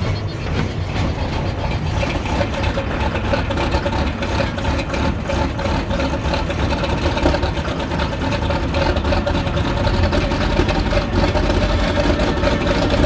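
John Deere 9600 combine's six-cylinder diesel engine being cranked on a cold start, turning over without firing yet. A steady whine grows stronger from about three seconds in.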